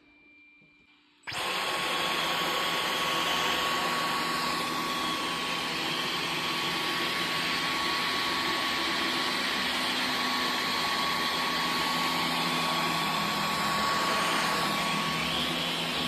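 Dyson V15 cordless stick vacuum switched on about a second in, then running steadily: an even rush of airflow with a thin, high whine over it.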